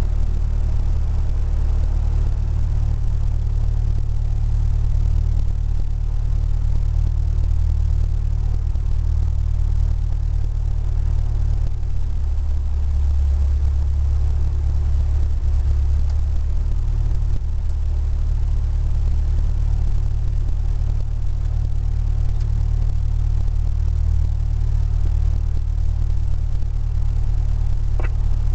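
Cessna 172's piston engine idling: a steady low drone that stays level and unchanged in pitch.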